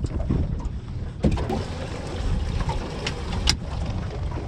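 Wind rumbling on the microphone and water lapping against a small aluminium boat's hull, with two sharp knocks, one about a second in and a louder one past the middle.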